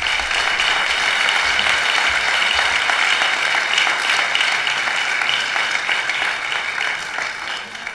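An audience applauding steadily, dying away near the end.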